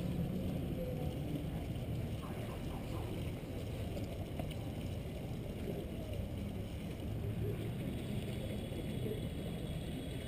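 Steady low outdoor rumble, muffled through a head-mounted GoPro's housing, with no single clear event.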